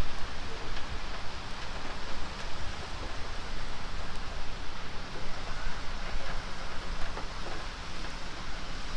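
Tour tram moving along, a steady rumbling hiss with no distinct events.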